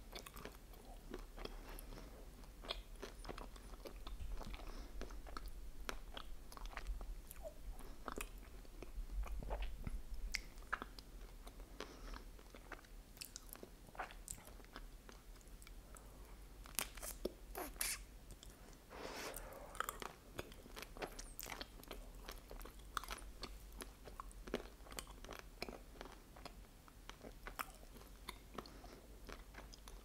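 Close-miked eating of a chocolate-coated Snickers ice cream bar: crisp cracks as the chocolate shell is bitten, then wet chewing with many small mouth clicks.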